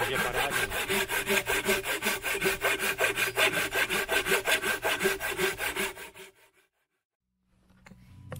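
Hand saw cutting through a log with quick, regular back-and-forth strokes, biting well into the wood. The sawing stops about six seconds in.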